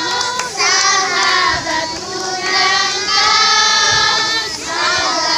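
A group of children, joined by adult women, singing a worship song together, some notes held long.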